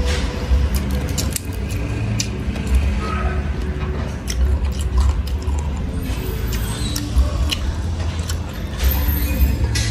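Crisp lettuce and bok choy leaves being torn and folded by hand close to the microphone: scattered crackles and snaps over a low rumble.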